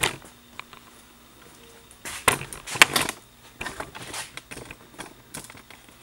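Scattered clicks and knocks of handling: a camera on its mount being picked up and moved in close over a wooden workbench. The clicks bunch together about two seconds in and again around four seconds.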